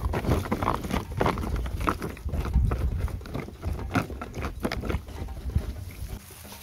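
Wooden chopsticks stirring durian flowers through thick flour batter in a thin plastic tub: dense, irregular clicking and tapping of the sticks against the plastic.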